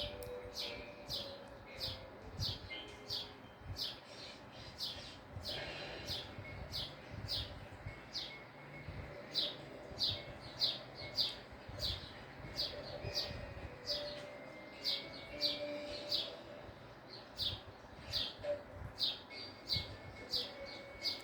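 A bird chirping over and over: short, high chirps that each slide downward, about two or three a second.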